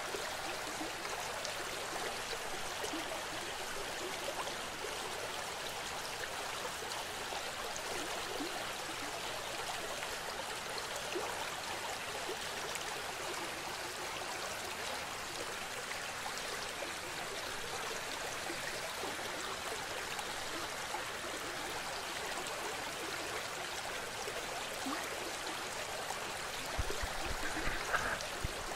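Small, shallow mountain river rushing steadily over stones close to the microphone. A few dull knocks near the end.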